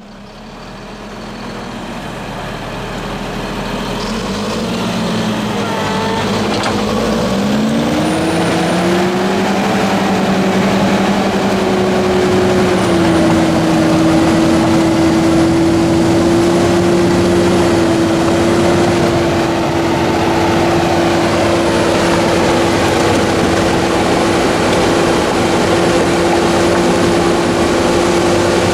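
Bulldozer's diesel engine running, revving up a few seconds in and then holding at a steady high speed.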